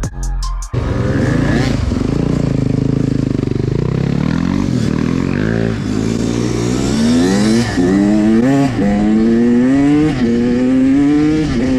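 Dirt bike engines running, then one bike accelerating and shifting up through the gears: the engine note climbs, drops at each shift and climbs again, several times over the last few seconds.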